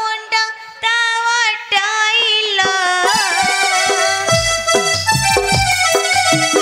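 Background accompaniment music for a stage play. A wavering melodic line with vibrato runs for about three seconds, then sustained keyboard notes take over, and regular drum beats join about four seconds in.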